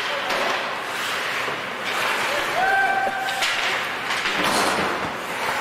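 Ice hockey play in a rink: a steady wash of noise with several sharp clacks of sticks and puck on the ice, and one held shout about halfway through.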